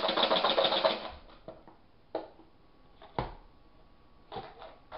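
Plastic BeanBoozled spinner whirring with rapid ratcheting clicks that stop about a second in, followed by a few separate clicks and knocks as the toy is handled.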